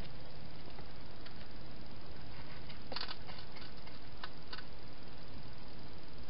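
Hedgehog feeding from a bowl inside a plastic feeding box: small clicks and crunches over a steady hiss, with a quick run of clicks about three seconds in and two more about a second later.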